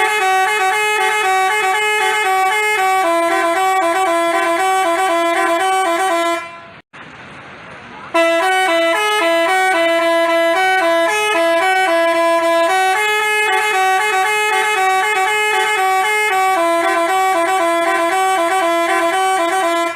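Basuri telolet bus horn playing a tune in stepped notes. It stops about six seconds in and starts again about two seconds later.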